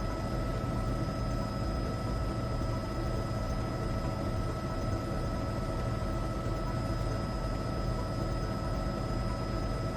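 Steady cabin noise of a helicopter in flight, heard through the intercom: an unchanging low drone with a few constant whining tones over it.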